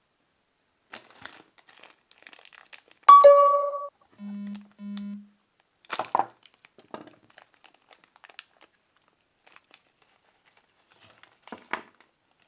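Packaging crinkling and handling noises with scattered clicks. About three seconds in there is a loud ringing tone lasting under a second, followed by two short low beeps.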